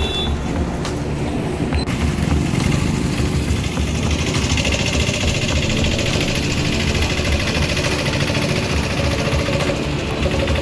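Road traffic: motorcycle and other vehicle engines running close by, a steady low engine drone with road noise.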